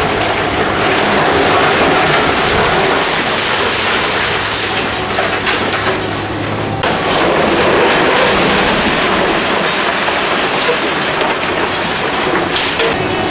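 Demolition excavator breaking up a concrete building: continuous loud clatter and crackle of concrete breaking and rubble falling, with a few heavier crashes, over the steady low drone of the machine's engine.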